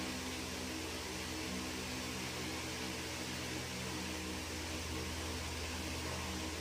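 Steady low hum with a layer of hiss, unchanging throughout: background machine and room noise.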